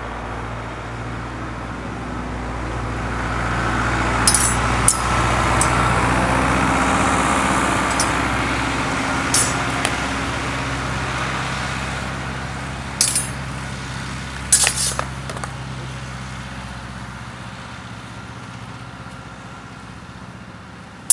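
A tractor engine driving past, its low drone swelling over the first several seconds and fading away in the second half. Steel training swords and bucklers clash sharply about seven times over it.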